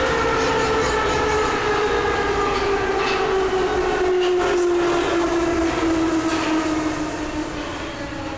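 Inside a Soviet-built 81-71 metro car: the whine of its traction motors falls steadily in pitch as the train slows, over running rumble and a few clacks from the wheels. The noise eases off near the end.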